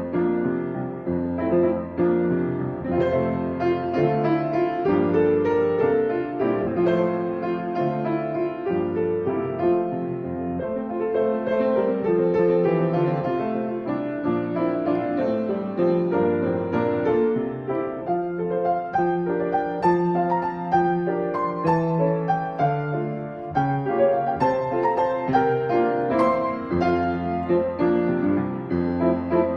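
Piano playing a slow, gentle instrumental piece, several notes held and overlapping at once.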